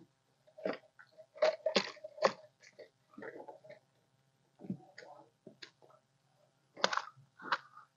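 Collapsible net trap with wire hoops being hauled aboard a small boat and shaken out: irregular bursts of rustling and clattering of mesh and hoops, with water dripping off the net.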